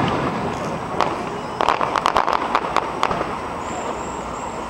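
Aerial fireworks going off: a sharp bang about a second in, then a rapid run of about a dozen sharp cracks over the next two seconds, fading away after that.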